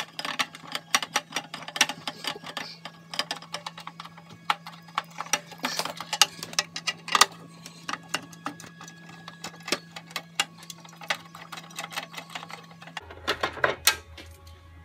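Irregular light clicks, taps and rattles of parts being handled inside a desktop computer case while the CPU cooler assembly is worked loose. A faint steady hum runs underneath and drops lower near the end.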